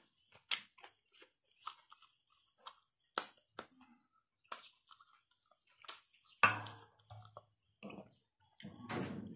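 Close-up eating sounds of a meal of fried duck egg and rice: scattered short, sharp clicks and mouth sounds as food is chewed, the egg torn by hand and a spoon scoops rice from the plate. A louder thump comes about six and a half seconds in.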